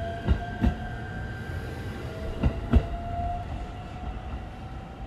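ET127 series electric train pulling away, its wheels knocking over a rail joint in quick pairs, twice, as the bogies pass, over a rolling rumble and a whine that rises slowly in pitch as it gathers speed. The sound fades near the end as the train draws off.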